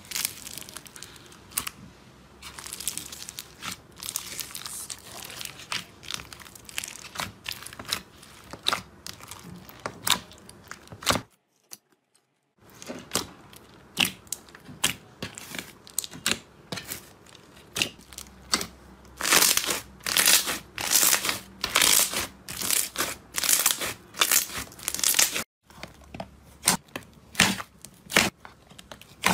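Hands pressing and squishing slime mixed with foam beads: quick runs of crunchy crackles and sticky pops. The sound stops briefly twice.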